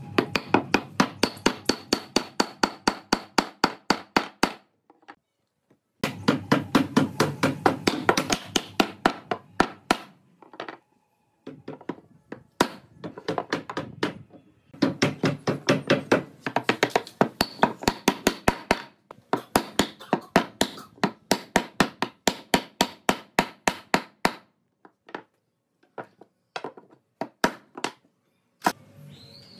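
Rapid, evenly spaced sharp knocks on wood, about four or five a second, in runs of a few seconds separated by short pauses, as pine frame pieces are fastened together; the last few seconds hold only a few scattered single knocks.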